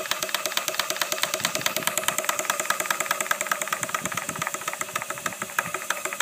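2-inch scale Minnie live-steam traction engine running, its beat and moving parts making a rapid, even clatter.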